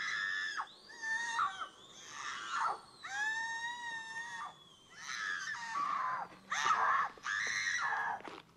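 A dental patient screaming in pain from the dentist's chair: about seven long, high-pitched cries in a row, each wavering up and down and breaking off before the next.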